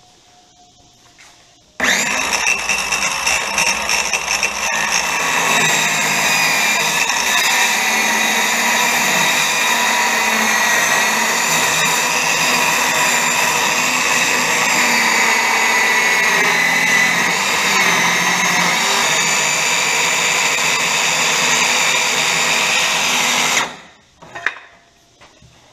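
Handheld circular saw starting up about two seconds in and running steadily for about twenty seconds as it cuts through the wooden top of a chest of drawers, its pitch wavering briefly partway through. It then stops, and a couple of short knocks follow.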